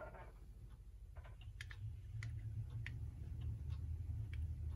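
Small irregular metallic clicks and taps from a Hammond clock movement as its plate is lifted off the gear train, with a low hum swelling about two seconds in.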